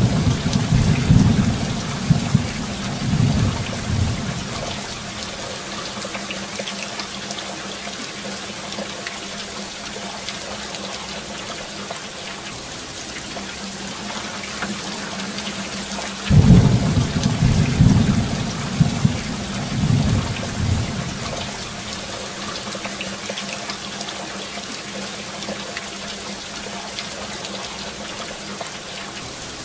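Steady rain with two rolls of thunder: one rumbling for the first few seconds, and another starting a little over halfway through and rumbling for about four seconds.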